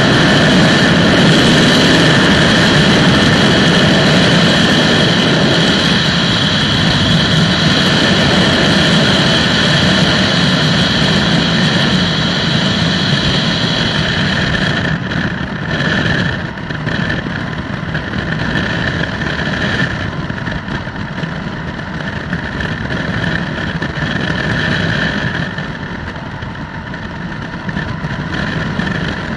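Flex-wing microlight trike's engine and propeller droning steadily in flight, with a rush of air. About halfway through, the sound drops in loudness and loses much of its high edge, as the aircraft heads down toward the runway on approach.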